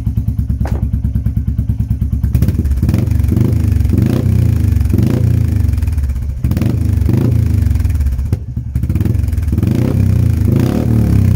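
Royal Enfield Meteor 350's single-cylinder engine, fitted with a Kent performance camshaft and a Red Rooster exhaust with its baffle removed, idling with an even thump, then revved in a string of short throttle blips from about two seconds in. The exhaust note is deep and meaty.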